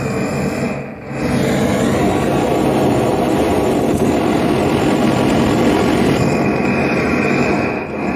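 Gas torch flame hissing steadily while brazing a copper capillary tube into a copper pipe, with a short dip about a second in.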